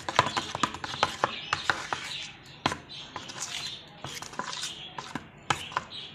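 A spoon stirring thick gram-flour batter in a plastic bowl: quick, irregular clicks and taps of the spoon against the bowl, with wet slapping of the batter, thinning out after the first couple of seconds.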